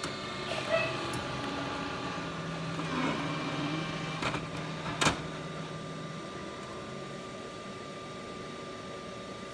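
Gaggia Radiosa bean-to-cup coffee machine running through a drink: a steady mechanical hum for a few seconds, with a few sharp clicks. After the hum stops, a quieter steady whir goes on.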